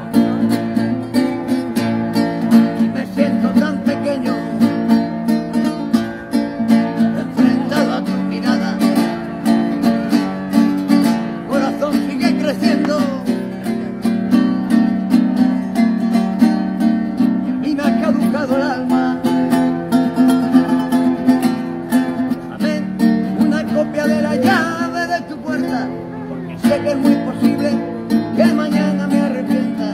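Acoustic guitar strummed steadily in a continuous rhythm, an instrumental passage between sung verses.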